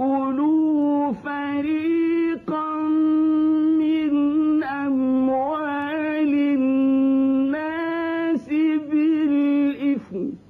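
A man's voice chanting the Qur'an in the slow, melodic mujawwad style. He sings long held notes with ornamented turns, broken by a few brief pauses for breath, and the phrase ends with a downward turn near the end.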